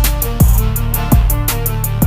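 Background music with a steady beat: deep kick drum hits that drop in pitch, quick hi-hat ticks and a sustained bass line.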